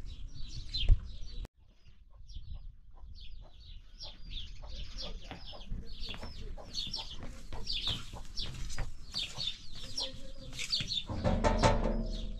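Many birds chirping in quick, high, overlapping calls, with a short break about a second and a half in.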